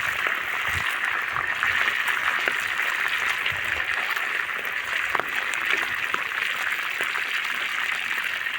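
Pieces of Nile perch deep-frying in hot oil: a steady sizzle with scattered small pops and crackles.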